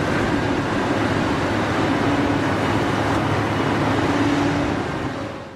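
Cat 349 hydraulic excavator's diesel engine running under load as it dumps soil into a dump truck and swings back, a steady mechanical drone with a pitched hum coming up twice. It fades out at the very end.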